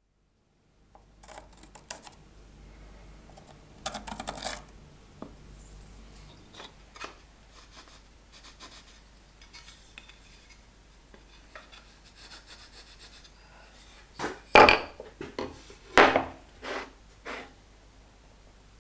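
Wooden parts of a shop-made kerfing plane handled on a wooden workbench: scattered clicks and knocks, with a few sharp knocks about three-quarters of the way through, and light scraping as a metal scribe marks the wood.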